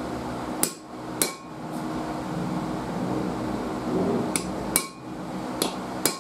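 A small sledgehammer striking a steel bolt used as a punch against the hub of a new brake rotor, giving sharp metallic clinks with a brief ring. Two blows come early, then after a pause of about three seconds four more follow in quicker succession near the end.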